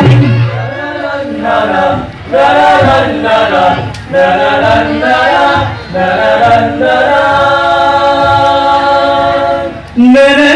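Young male voices singing a qasidah melody unaccompanied, a lead singer with the group, in long sung phrases with short breaks. Near the end the full rebana and keyboard accompaniment comes back in loudly.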